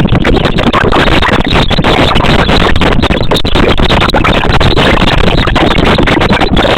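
Loud, dense background music with no speech.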